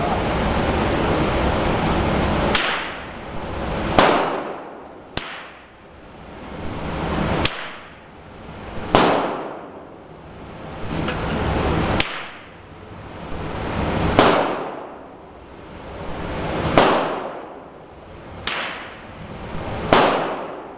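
A series of about ten single gunshots spaced one to three seconds apart, each followed by a short decaying echo, with wind noise on the microphone swelling and fading between them.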